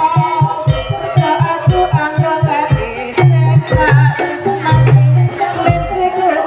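Live jaranan music: drums beating a quick steady rhythm under a wavering melodic line, with a few longer low notes held around the middle.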